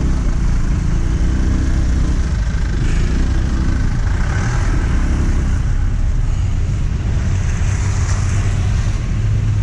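Aprilia Storm scooter's engine running as it rides slowly over a rough dirt road, a steady low drone with road and wind noise over it.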